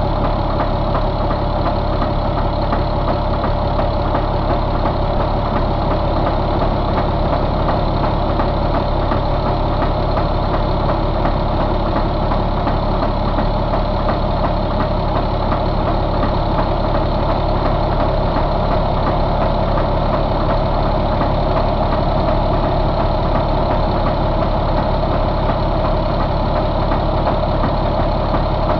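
Caterpillar 3126 inline-six diesel engine idling steadily, heard close up in the open engine bay.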